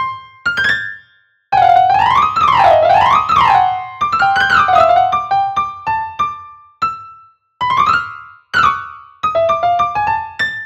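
Solo piano music: struck notes that ring and fade, with quick runs up and down the keys about two seconds in and short pauses between phrases.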